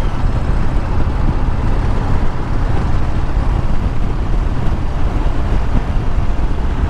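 Motorcycle engine and exhaust running steadily while the bike is under way, a dense low sound with no clear changes in pitch.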